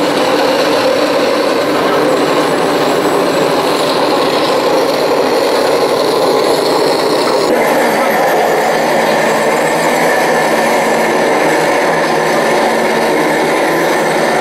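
1:16 scale RC tank models driving, a steady mechanical whirring from their small electric drives. The sound changes abruptly about seven and a half seconds in.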